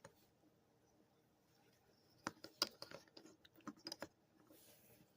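Faint clicks and taps of a plastic Transformers Spark Armor Starscream action figure being handled and its joints moved, a scatter of them starting about two seconds in.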